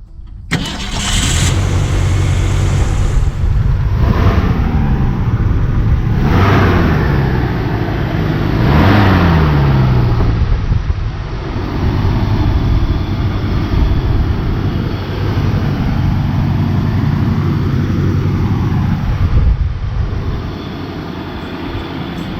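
Ford 260 cubic-inch V8 in a 1964½ Mustang starting up, then revved three times in quick blips before settling into a steady idle.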